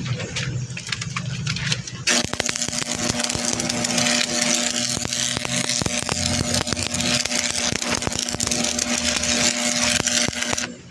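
Metalworking tool noise: a loud hissing, crackling sound over a steady hum starts about two seconds in and cuts off just before the end. It follows a lower engine-like hum.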